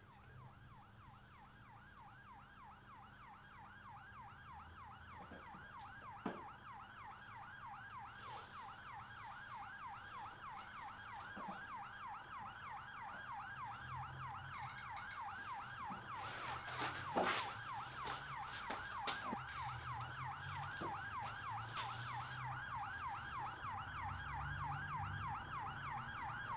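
Police siren in a fast rising-and-falling yelp, about three sweeps a second, growing steadily louder as it approaches. A few brief knocks sound over it, the loudest about two-thirds of the way through.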